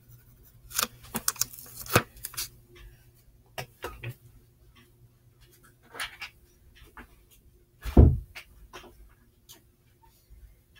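Handling noises on a tabletop: a quick run of light clicks and rustles in the first couple of seconds, scattered single clicks after, and one heavy thump about eight seconds in, the loudest sound.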